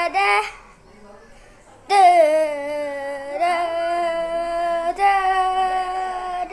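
A high singing voice holds long vowel notes. A short sung syllable ends just after the start, and after a pause of about a second and a half one long note slides downward, followed by two steadier held notes.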